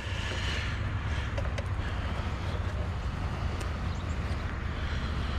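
Truck engine idling steadily with a low rumble, with a few faint clicks over it.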